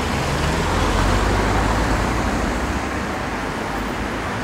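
Road traffic noise, a steady rush with a low rumble that swells briefly about a second in, as of a vehicle going by.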